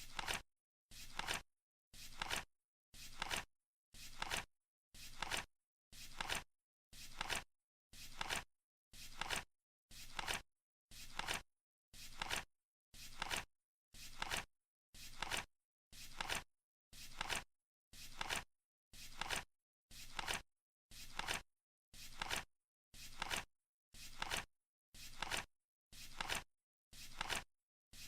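Flip clock ticking off the seconds: one short flap-click every second, with dead silence between, as the countdown timer runs.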